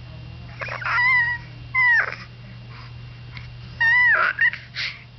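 A baby's high-pitched vocal calls, the new noise it has just learned: three short calls, the second and third gliding sharply down in pitch at the end.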